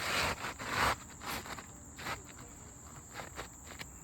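A new three-tab asphalt shingle being handled and slid into place, scraping loudly twice in the first second and then giving scattered light taps and scrapes. Insects chirr steadily in the background.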